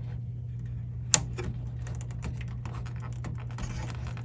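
Small clicks and taps of tools and fingers working among the parts inside a cassette deck, getting at an old zip tie, with one sharper click about a second in, over a steady low hum.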